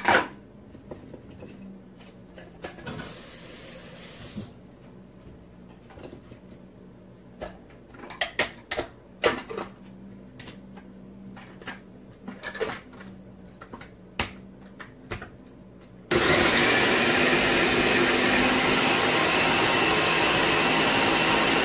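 Scattered clicks and knocks of plastic parts being handled. Then, about three-quarters of the way in, an electric food processor switches on and runs steadily, mincing onion.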